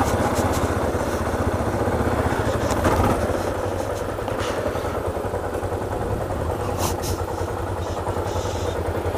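Motorcycle engine running steadily at low speed while riding along a stony dirt road, with a brief knock about three seconds in.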